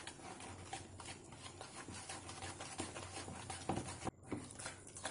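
Wire whisk beating powdered sugar, sunflower oil and vanilla essence in a mixing bowl: faint, repeated short strokes of the whisk against the bowl.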